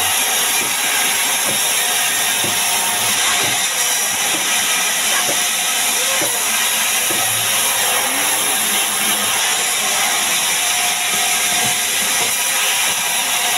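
Sawmill band saw cutting a log lengthwise into slabs: a steady hiss of the blade running through the wood.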